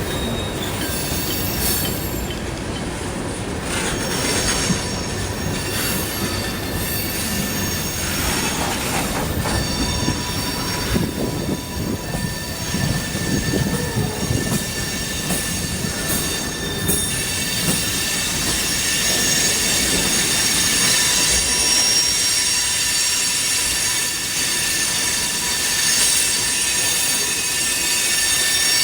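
Canadian National train rolling past, its wheels screeching against the rails in several high, steady squeal tones over the rumble and clatter of the cars. The screech grows louder about halfway through.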